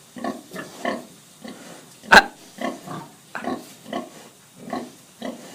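Nursing sow grunting in a steady rhythm, about three short grunts a second, the call that goes with her milk let-down while the piglets suckle. One sharp, loud click about two seconds in.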